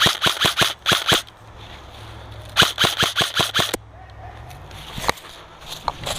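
Airsoft guns firing two quick strings of sharp shots, about eight a second, each lasting a little over a second, with a couple of single shots afterwards.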